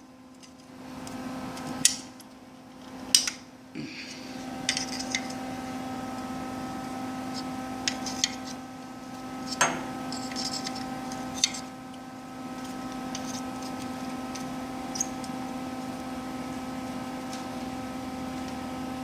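A wrench turning a nut welded onto a broken-off bolt to back the bolt out: scattered sharp metallic clicks and clanks, over a steady hum.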